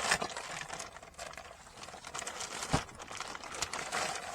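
Rustling and crinkling of packaging being handled, with small clicks throughout and one sharp knock a little over halfway through.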